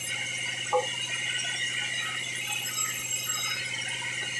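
Sawmill bandsaw running with a steady, high, ringing whine, and a single short metallic clink about three-quarters of a second in.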